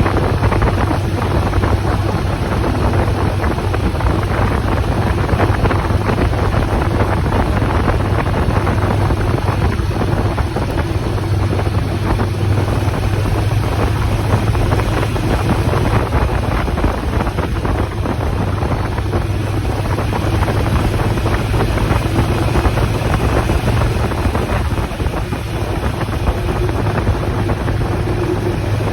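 Motorcycle riding at a steady speed: a constant low engine drone under heavy wind rushing over the microphone.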